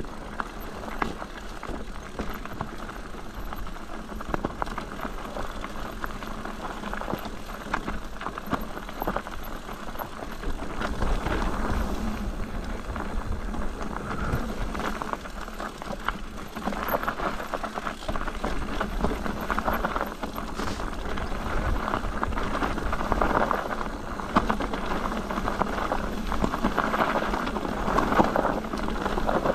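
Mountain bike rolling down a rough, stony trail: tyres crunching over rocks and the bike rattling, growing louder about a third of the way in.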